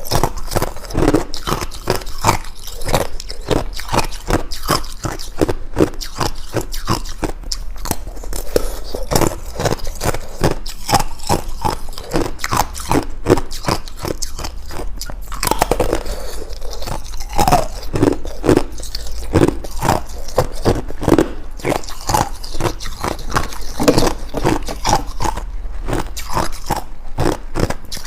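Ice cubes being bitten and chewed close to the microphone: a dense, irregular run of loud crunches and cracks, several a second.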